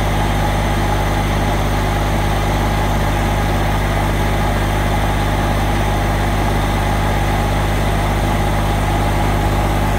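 Kubota compact tractor's diesel engine idling steadily, a constant low drone with a thin steady whine above it.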